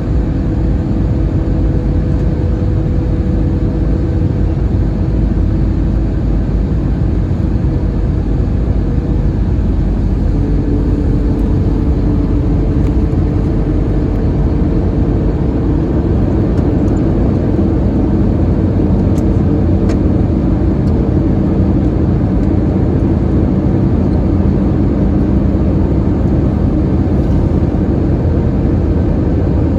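Steady roar inside an Airbus A321-211's cabin: the drone of its CFM56 engines and rushing airflow. The engine tones change pitch about ten seconds in, and a lower tone joins a few seconds later.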